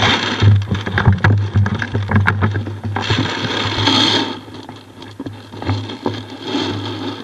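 Rustling and scraping close to the microphone, with scattered knocks and clicks, over a steady low hum.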